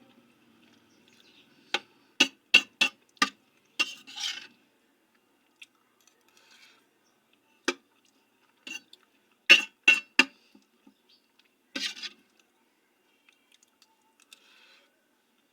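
An eating utensil clinking and tapping against a dish in short runs of sharp clicks, as food is scooped up.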